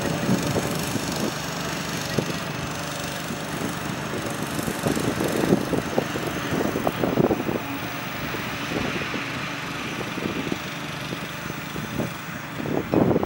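Small engine of a motorised shed mover running steadily while it pulls a shed on a wheeled dolly across grass.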